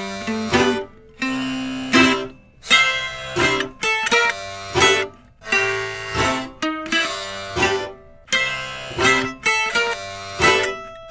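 Background music: a plucked string instrument picking a tune, note by note, with short breaks between phrases.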